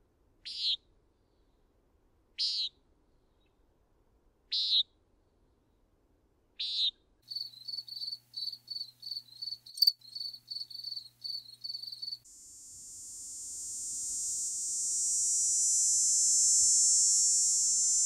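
A common nighthawk gives four short nasal peent calls about two seconds apart. A cricket then chirps in a steady run of about two or three chirps a second. From about 12 seconds in, a cicada's continuous high buzz takes over and swells in loudness.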